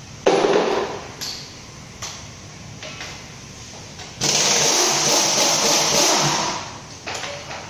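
Power wrench run in a short burst just after the start, then again for about two seconds from around four seconds in, with a few light clicks between: bolts being run off an engine during teardown.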